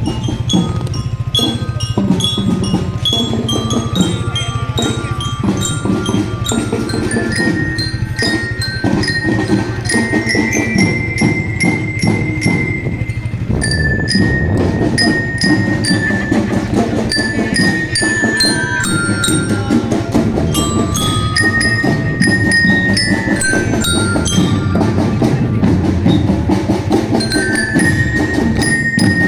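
A marching drum band playing: a bell-lyra melody of stepping notes over a steady rhythm of marching drums.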